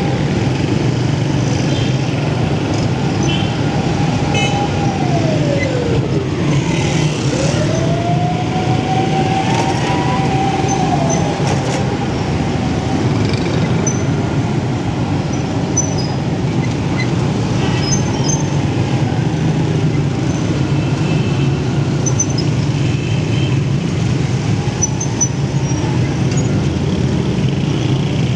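Honda motorcycle engine running as it rides through dense city traffic, with other motorbikes and traffic around it. About five seconds in its note falls as it slows, then climbs again as it picks up speed.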